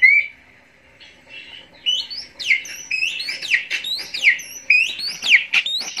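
Recorded songbird song played from a phone through a simple homemade amplifier into an old TV speaker: a fast run of whistled notes sweeping up and down, loud. The song drops away just after the start and picks up again about a second in.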